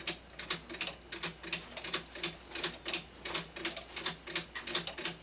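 3D-printed PLA+ grasshopper-escapement pendulum clock running, its escapement ticking steadily at about four clicks a second.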